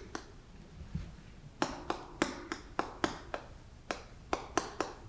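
Chalk writing on a blackboard: a quick series of sharp taps and short clicks as characters are written, about three or four a second, starting about a second and a half in.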